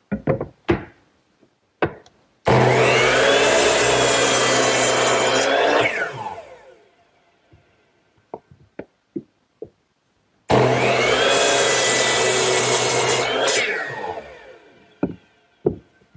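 Power miter saw switched on twice, each time crosscutting a thick board for about three seconds, then winding down with a falling whine. Light knocks from the board being handled between cuts.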